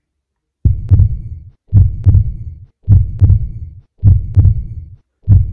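Heartbeat sound effect: a deep double thump, lub-dub, repeating about once a second. It starts suddenly after a brief silence.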